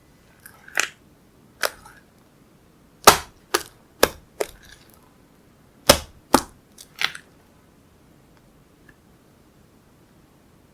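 Slime being handled, with about nine sharp pops in an irregular run, some in quick pairs.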